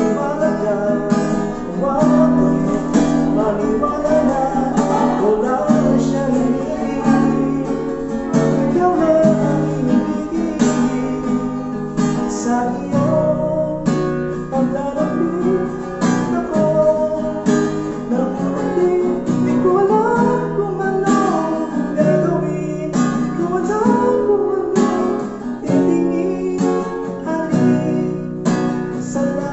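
Acoustic guitar strumming and picking a song, played live as a Filipino harana serenade.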